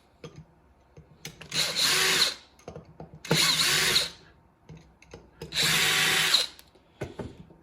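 Power screwdriver with a T10 Torx bit running in three short bursts about a second and a half apart, with light handling noise between them, as it undoes the screws holding a robot mower's drive motor to its mounting plate.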